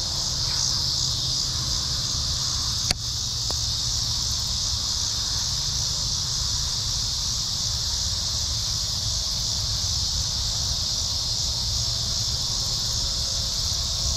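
A steady, high-pitched chorus of insects buzzing without a break, with a low rumble beneath it and a single sharp click about three seconds in.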